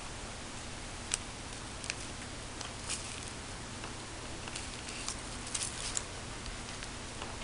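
Light handling noises of plastic candy-kit packets and a plastic tray: scattered soft clicks and crinkles about a second apart, with a small cluster near the end, over a steady low hum.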